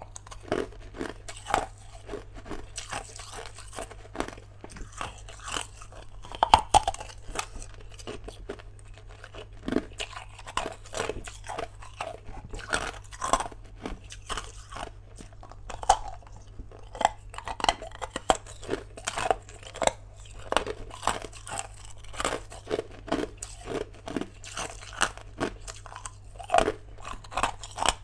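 Hard ice being bitten and chewed: an irregular run of sharp crunches, the loudest crack about six and a half seconds in.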